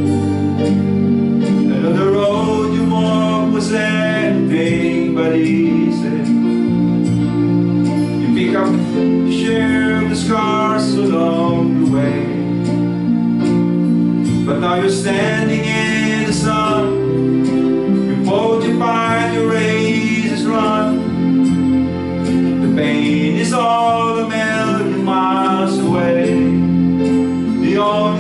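An acoustic guitar and a Yamaha electronic keyboard play a slow gospel song together, a held accompaniment with a melody moving over it.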